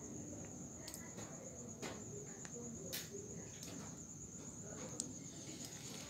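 Night insects trilling steadily at one high pitch, with several faint short clicks scattered through.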